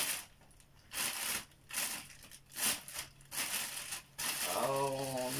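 Thin plastic carrier bag crinkling in a series of short rustles as it is shaken open and handled.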